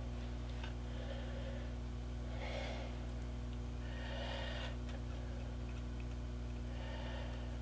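Steady low electrical hum, with four soft breaths, each under a second, at about two-second intervals, and a few faint small clicks from small plastic parts being handled.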